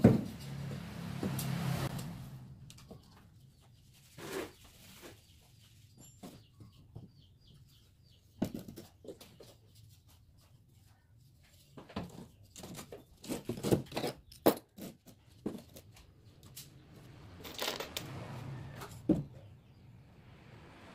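Irregular knocks, clicks and scrapes of long steel bars being handled and laid on a concrete workbench, with the sharpest knock at the very start and a run of clatter about two thirds of the way in.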